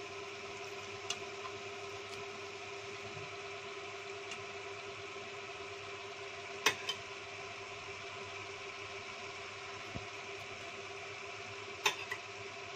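A steady machine-like hum with one held tone, broken by a few short clicks: a faint one about a second in, and louder paired clicks about halfway through and near the end.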